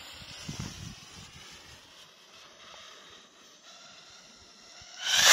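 Firework rocket fuse burning with a faint steady hiss, then about five seconds in the ball rocket lifts off from the launch rack with a loud rushing whoosh.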